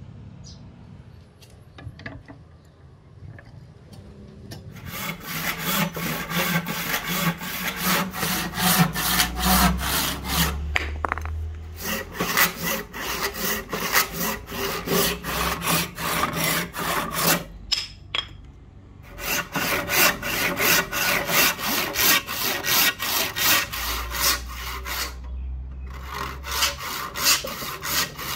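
Hand saw cutting through a wooden blank clamped in a vise, in steady back-and-forth strokes that begin about five seconds in and stop briefly a few times.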